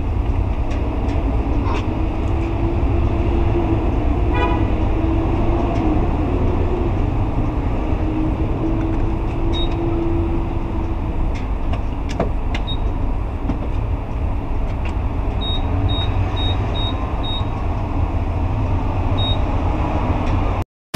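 Steady low rumble of traffic and engines at a fuel pump, with short high electronic beeps from the pump's keypad: a single beep now and then and a quick run of five near the end.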